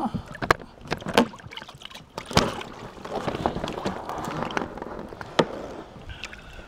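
Handling noise in an inflatable boat: rustling of clothing and gear with scattered sharp knocks as hands work a landing net and line by the boat's rubber tube.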